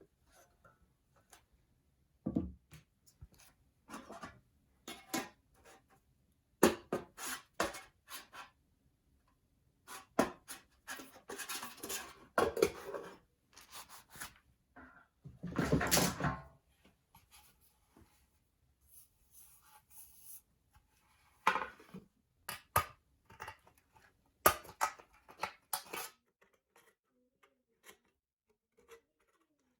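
Thin stainless steel trays being handled and worked with hand tools: scattered clicks and metallic clatters with pauses between, and a longer noisy stretch of about a second around the middle.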